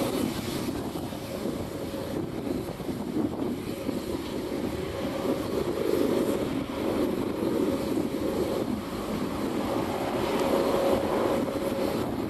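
Four display helicopters flying aerobatics at a distance: a steady rumble of rotors and turbine engines, with a faint steady whine that comes and goes.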